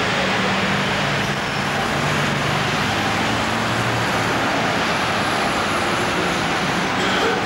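Town-centre road traffic noise: a steady wash of vehicles, with a low engine hum that stops about four seconds in.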